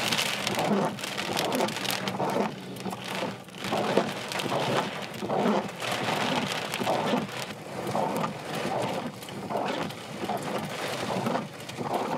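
Heavy thunderstorm rain pouring down, its hiss swelling and easing about once a second.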